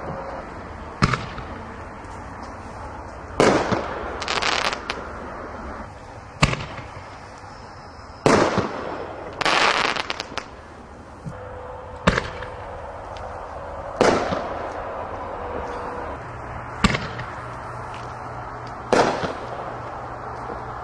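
2¼-inch aerial firework shells fired from tubes in a rapid series: about ten sharp bangs roughly two seconds apart, each trailing off in an echo, with a few coming as quick clusters of reports.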